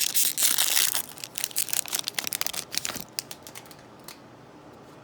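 Foil wrapper of a Magic: The Gathering booster pack crinkling and tearing as it is ripped open, loudest in the first second, then a run of sharp crackles that die away about three seconds in.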